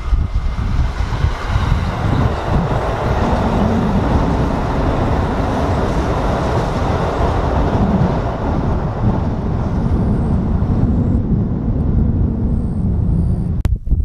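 Kintetsu electric train passing close by: a loud, continuous rumble of wheels and running gear on the rails, which cuts off abruptly near the end.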